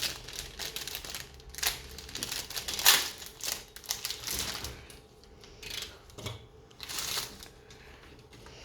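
Irregular clicking and rustling as computer parts and cables are handled, loudest about three seconds in.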